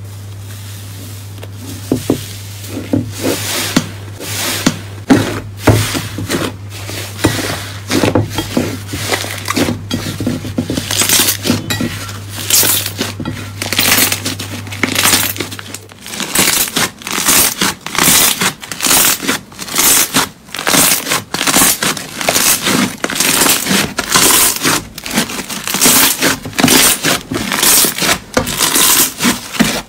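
Hands stretching, squeezing and tearing slime, giving dense irregular crackles and pops as trapped air pockets burst, coming faster in the second half. A steady low hum runs under the first half and stops about halfway through.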